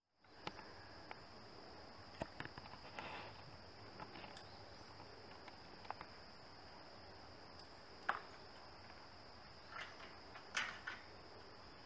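Faint, steady, high-pitched drone of insects, with scattered faint clicks and short rustles.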